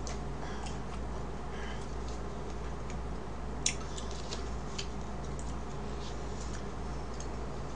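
Faint, scattered clicks and taps of a plastic cake knife cutting into a strawberry cake on its board, one a little sharper near the middle, over a steady low hum.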